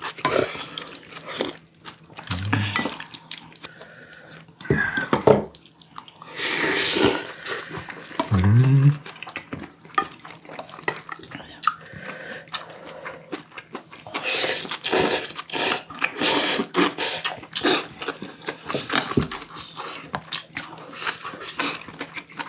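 Mukbang eating sounds: cutlery clicking against bowls and plates, and wet sounds of eating from a cold soup, with a few short murmurs, one rising in pitch.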